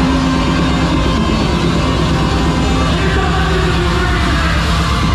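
Loud music with steady bass notes and a dense mix above them.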